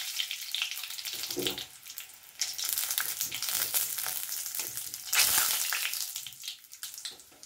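Whole spices and bay leaves sizzling in hot oil in a steel kadhai, with a metal spatula scraping and clicking against the pan as they are stirred. The sizzle surges louder about five seconds in, then dies down toward the end.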